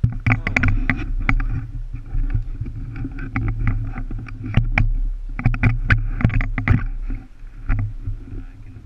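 Handling noise from an action camera being moved and fixed in place: a string of sharp knocks and clicks with rubbing against the microphone, over a steady low hum.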